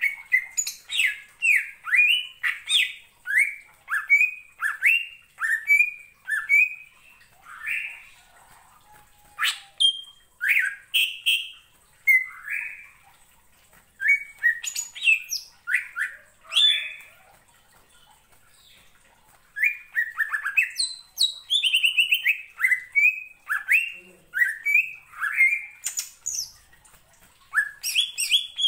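Male greater green leafbird (cucak ijo) singing loudly in full voice: phrases of sharp, down-slurred whistled notes, broken by a few short pauses, with a faster run of notes about two-thirds of the way through. It is the excited, aggressive song that keepers play as a lure to stir other birds into singing.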